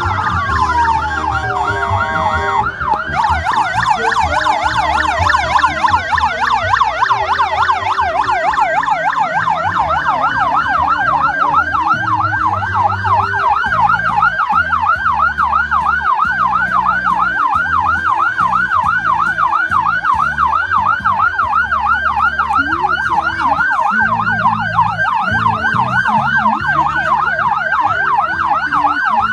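Electronic vehicle siren: a slow wail that falls and rises over the first few seconds, then switches to a fast, steady yelp, over a low rumble.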